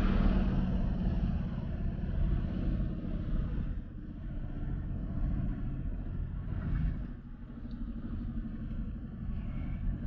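Twin-tub washing machine's spin-dryer tub spinning a load of wet clothes: a low hum and rumble that fades over the first few seconds, then carries on more quietly.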